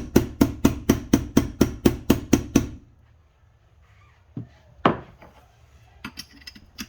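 Rubber mallet striking a part of a Honda Civic manual transmission in a quick steady run of about a dozen blows, about four a second, to drive it into place. The run stops about two and a half seconds in, followed by two single knocks and a few light clicks near the end.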